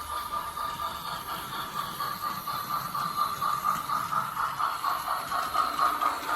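Plarail toy C62 steam locomotive running on plastic track: its battery motor and gears whine steadily, with an even rhythmic pulsing steam-chuff sound effect from its sound unit.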